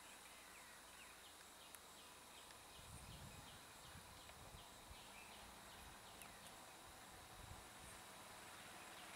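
Near silence: faint outdoor ambience with a soft chirp repeating about three times a second for the first half, and a low rumble about three seconds in.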